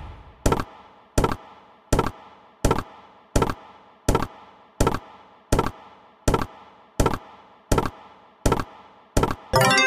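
Online slot game's reel-stop sound effect: a dull thunk repeating about every three-quarters of a second, each dying away quickly. A short chiming jingle comes in near the end.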